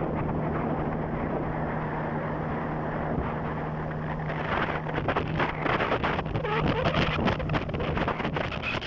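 A small boat's motor running at a steady pitch, dropping out about seven and a half seconds in, with wind buffeting the microphone, stronger in the second half.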